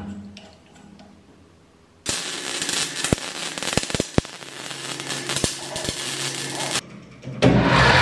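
MIG welder crackling and spitting for about five seconds, starting about two seconds in. Near the end, a salvaged washing-machine electric motor with a small gearbox on its shaft is switched on and runs with a steady hum, louder than the welding.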